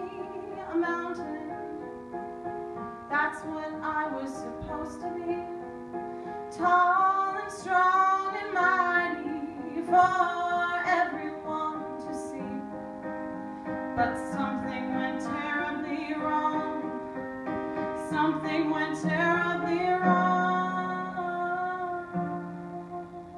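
A woman singing with keyboard accompaniment, the keyboard holding steady chords under the sung melody.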